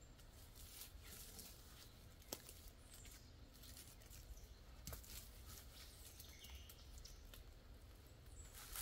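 Near silence broken by faint scrapes and a few sharp clicks of tree-climbing gear and boots against the trunk during an aider climb, two clicks standing out about two and a half and five seconds in.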